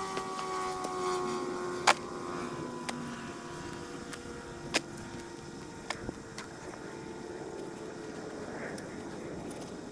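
A distant engine passing by, its hum slowly falling in pitch and fading away, with a few sharp knocks on top, the loudest about two seconds in.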